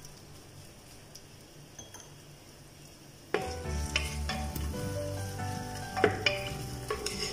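Chopped coconut frying in hot coconut oil in an aluminium pressure cooker: a faint sizzle at first, then louder from about three seconds in, when a wooden spatula starts stirring and scraping the pot.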